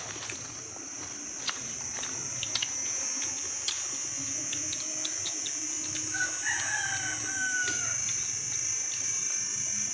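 A rooster crows once, about six seconds in, over a steady high-pitched drone, with scattered small clicks.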